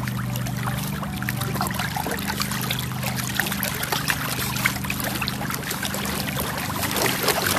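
Water splashing and trickling as a puppy paddles through a swimming pool close to the microphone, a dense, continuous crackle of small splashes.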